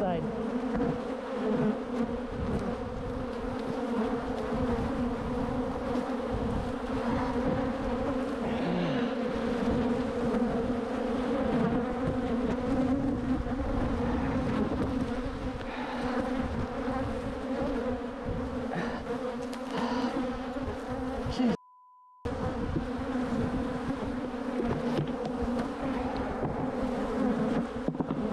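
Steady low buzzing of a swarm of defensive honeybees flying close around the microphone, with rustling from the beekeeper's suit. About three-quarters through, the sound drops out for a moment under a short single-tone censor bleep.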